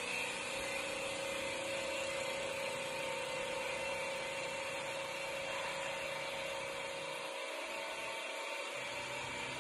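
CNC wood lathe machining a spinning wood blank: a steady whine from the machine with the noise of the turning tools cutting.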